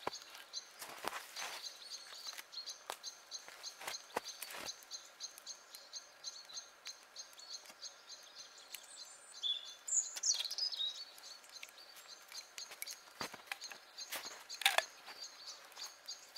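Logs burning in a steel fire box, crackling and popping over a steady high hiss. About ten seconds in comes a short falling whistle, and near the end a louder pop.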